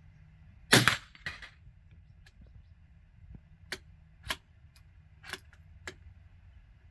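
A single shot from a CZ 457 Jaguar .22 LR bolt-action rifle, a sharp crack with a weaker report about half a second after it. A few seconds later come four or five small sharp clicks.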